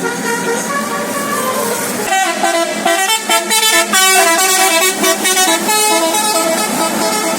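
A bus's basuri telolet horn, a multi-note musical horn, playing a rapid run of stepped notes like a tune, busier and louder from about two seconds in.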